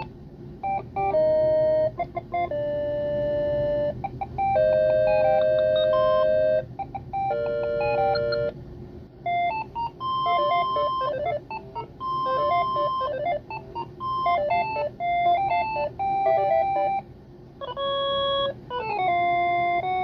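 General Electric 28112EE2 DECT 6.0 cordless phone handset playing its built-in ringtones through its small speaker: short synthesized melodies, each stopping and giving way to a different one as the ringer tone setting is stepped through. One of them has held notes, a later one is a busier run of quick notes, and the last one starts near the end with sliding, falling notes.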